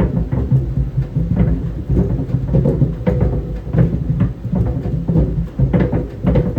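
Tennis balls tumbling in a running clothes dryer, thudding irregularly against the drum several times a second over a steady low rumble of the machine.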